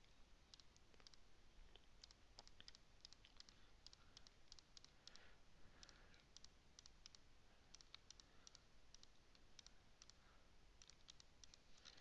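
Faint computer mouse clicks, many short ticks in irregular runs, over a low steady room hum.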